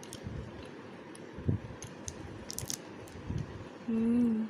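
Biting into and chewing a Munch chocolate-coated wafer bar: scattered crisp crunches and crackles, one louder crunch about a second and a half in. Near the end comes a short, steady hummed 'mmm'.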